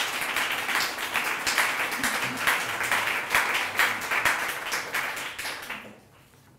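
Audience applauding, a dense patter of many hands that dies away about six seconds in.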